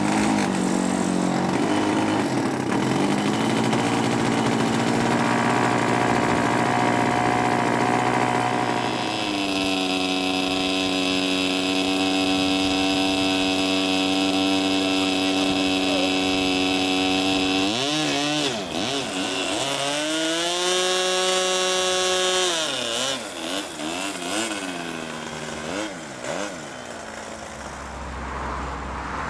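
Model aircraft engine on a large radio-controlled plane, just started, running at a fast idle, then held at a higher steady speed from about nine seconds in. From about eighteen seconds it is revved up and down several times, held high briefly, then grows fainter and uneven near the end.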